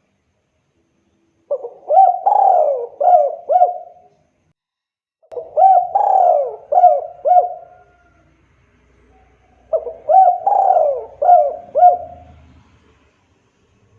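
Spotted dove cooing: three song phrases a couple of seconds apart, each a quick run of about five coos.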